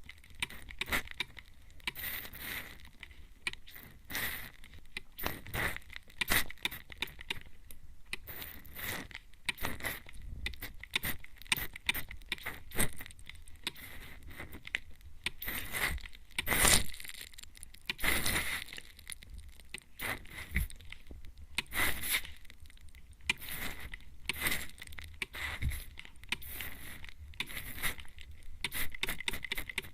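A trigger mist sprayer sprayed again and again close to the microphone: short hissing puffs of spray in quick, irregular succession, a few louder than the rest around the middle.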